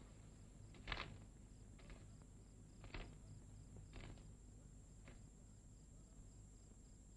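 Faint footfalls, about one a second, the first the loudest, growing fainter and dying out after about five seconds, over the steady hiss and hum of an old film soundtrack.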